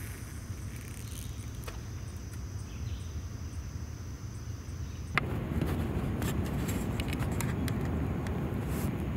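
Outdoor ambience: a steady low rumble under a thin, even insect drone. About five seconds in the drone cuts off and the rumble grows louder, with scattered light clicks.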